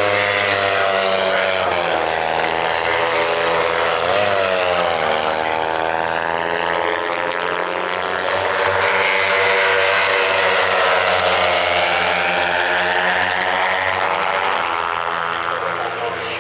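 Several Kawasaki 300 parallel-twin race bikes running hard as they pass. Their engine notes rise and fall through the curves and gear changes.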